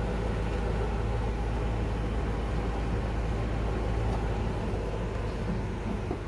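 Lexus LX570 idling with a steady low hum, easing slightly about four and a half seconds in.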